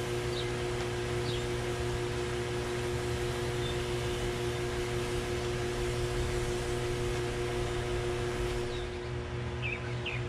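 Steady mechanical hum of a fan-type machine, with a few held tones under an even hiss, easing off slightly near the end. Faint bird chirps come through now and then.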